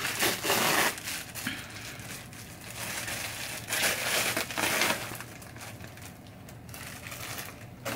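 Plastic mailer bag crinkling as it is handled and opened by hand, in two main spells of rustling, the second about four seconds in.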